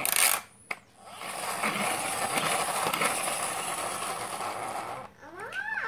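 Handling noise from a toy car held against the phone's microphone: a short loud knock, then a steady rubbing, scraping noise for about four seconds.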